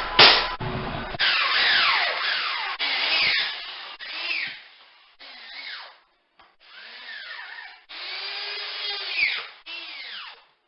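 Power drill driving screws to fix drywall corner bead, its motor whining up and winding down in several short trigger bursts with brief pauses between.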